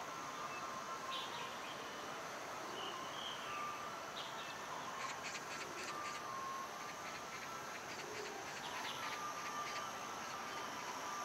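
Birds chirping in short, scattered calls over a steady background hum of outdoor ambience.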